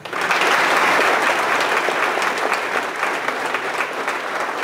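Audience applauding: many hands clapping, starting all at once and easing off slightly after a few seconds.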